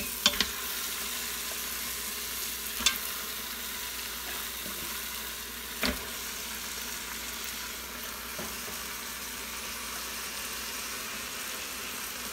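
Onion-tomato masala sizzling with a steady hiss in an Instant Pot on sauté mode as pieces of raw goat meat are dropped in, with a few brief knocks: two just after the start, one near three seconds and one near six seconds.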